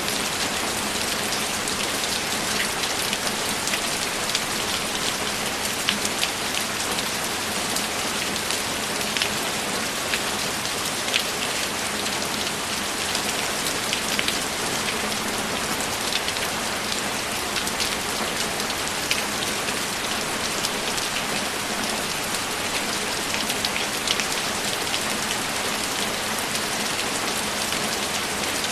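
Steady, heavy rainfall, with individual drops striking a nearby surface as scattered sharp ticks throughout.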